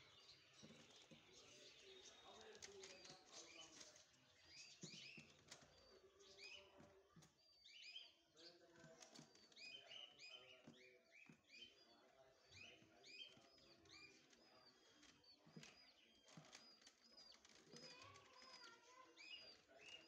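Faint small birds chirping over and over in quick short calls, with faint voices underneath.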